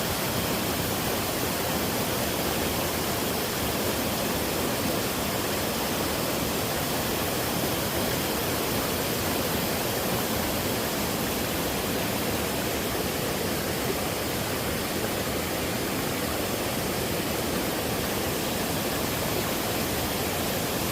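Waterfall pouring steadily into a mountain stream, a continuous even rush of falling water.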